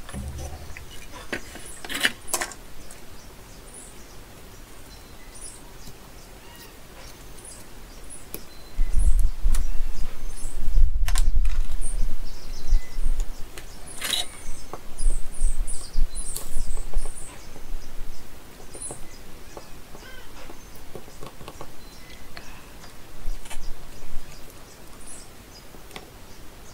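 Short high chirps, like small birds calling, repeat on and off throughout. A low rumble rises about nine seconds in and fades near eighteen seconds, and a few sharp clicks fall near the start and in the middle.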